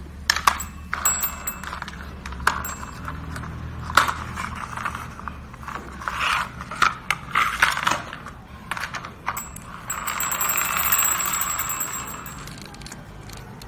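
Battery-operated plastic toy steam locomotive running across a hard floor: a low motor hum with scattered plastic clicks and clatters. From about ten seconds in there is a steady rushing, hissing sound that lasts a couple of seconds.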